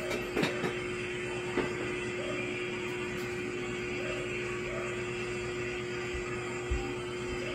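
A steady hum holding one unchanging pitch over an even background hiss, with a few faint clicks.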